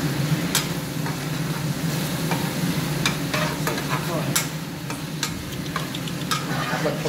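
Food frying in oil in a wok with a steady sizzle, while a metal spatula scrapes and stirs it, knocking against the pan with several sharp clinks.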